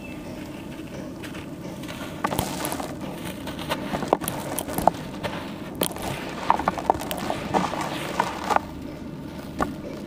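Wet charcoal slab dusted with dry charcoal powder being pressed and crumbled by hand in a plastic tub: soft squishing with many irregular crackles.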